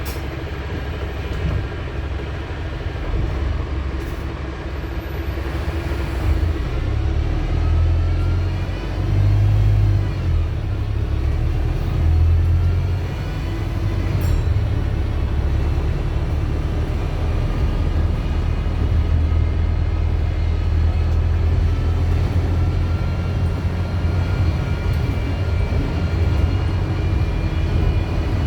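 Wright StreetDeck double-decker bus with a Mercedes-Benz OM934 diesel engine under way: a steady low engine rumble that swells for a few seconds, a constant hum, and a whine that rises and falls in pitch as the bus speeds up and slows.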